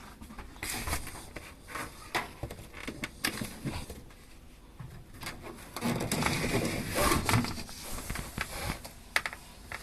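Irregular clicks, rubbing and scraping of objects being handled, with a louder stretch of scraping and rustling about six seconds in.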